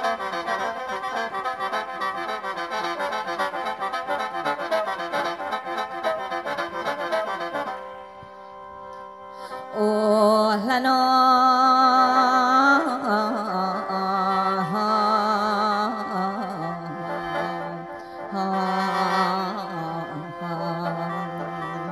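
Isan mor lam music led by a khaen, the free-reed bamboo mouth organ. For about eight seconds it plays a busy rhythmic passage with the band. After a brief dip, a slower, louder passage follows: long wavering notes over a steady drone.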